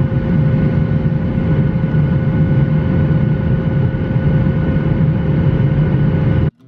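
Steady jet airliner cabin noise: low engine rumble and rushing air with a few faint steady whining tones, cutting off abruptly near the end.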